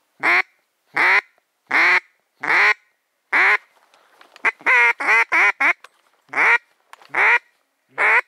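Duck call imitating a hen mallard, blown to lure ducks in: loud quacks about one a second, a quick run of about six shorter quacks around the middle, then three more spaced quacks.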